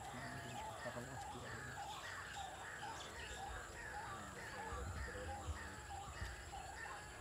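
Birds calling over and over in a steady chorus of short, arched calls about twice a second, with a brief low rumble about five seconds in.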